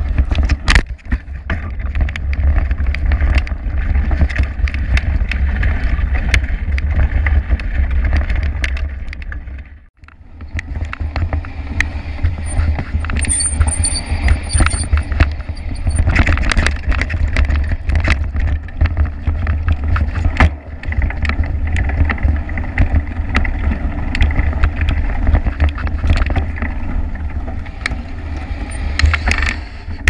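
Mountain bike riding over dirt and rough grass: heavy wind rumble on the microphone, with a steady run of rattles and knocks from the bike jolting over the ground. It breaks off briefly about ten seconds in.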